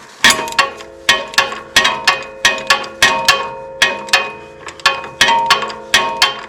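Ratchet wrench clicking in quick sharp metallic strokes, about three a second, each with a short ring, as a 1-1/8 inch socket works the filter cap loose on a Hydro-Gear ZT5400 transaxle.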